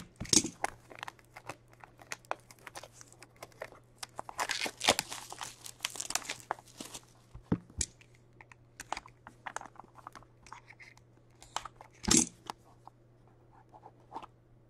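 Plastic shrink-wrap being cut, torn and crinkled off a cardboard trading-card box, with small clicks and rustles as the box is handled. There is a longer stretch of tearing and crinkling about four to seven seconds in, and another sharp rustle near the twelve-second mark.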